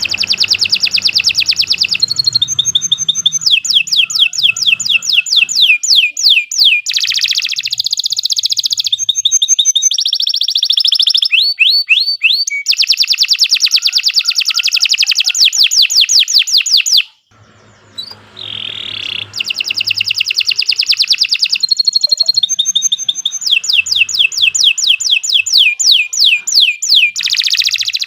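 Domestic canary singing a long, unbroken song of rapid trills and fast repeated notes, switching to a new phrase every second or two, with one short pause about two-thirds of the way through.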